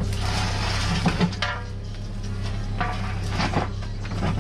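Terex mini excavator's diesel engine running steadily while its bucket scrapes and knocks through dirt and stones, with clattering knocks about a second in, again around three and a half seconds in, and near the end.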